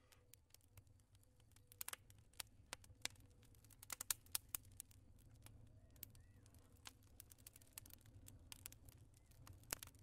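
Faint crackling of a fire: irregular sharp pops and snaps over a low steady rumble, busiest about four seconds in.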